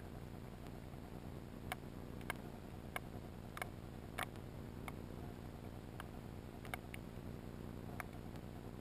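Underwater ambience over an oyster reef: a steady low rush of water noise with about ten sharp clicks at irregular intervals.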